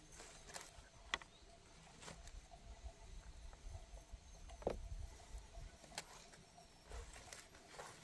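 Faint, scattered clicks and knocks, such as things being handled or set down, with a sharp click about a second in and a louder knock near the middle, over a low rumble.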